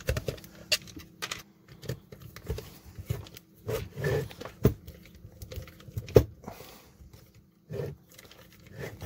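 Irregular clicks, scrapes and knocks of hands handling a black plastic transformer housing while its long self-tapping screws are backed out of the soft plastic, with a few sharper knocks among them.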